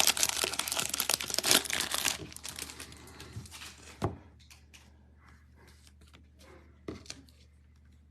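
Plastic wrapping of a Topps trading card hanger pack being torn open and crinkled by hand. The crinkling is dense for about two seconds, then fades, with a sharp click about four seconds in and another near seven seconds.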